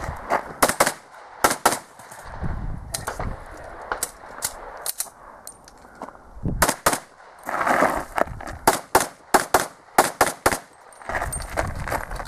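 A string of handgun shots in a practical shooting course of fire, mostly in quick pairs, with a pause of about a second and a half near the middle before the firing resumes.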